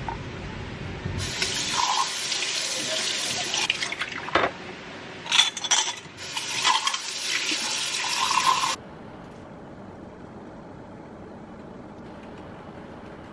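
Water running from a tap into a sink for several seconds, with a few sharp knocks partway through, then cut off suddenly, leaving a quieter steady hum.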